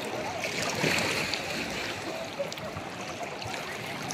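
Sea water splashing and lapping close by as a swimmer moves through shallow water, a little louder about a second in, with faint distant voices of bathers.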